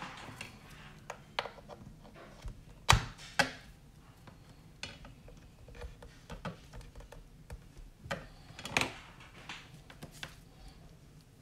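Irregular clicks and knocks of a handheld digital multimeter being handled on a workbench: its rotary selector dial is turned and test-lead plugs are pushed into its input jacks. The sharpest knock comes a little under 3 seconds in.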